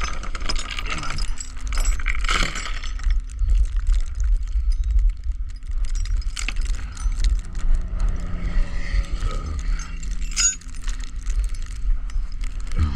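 Light metal clinking and jangling over a steady low rumble.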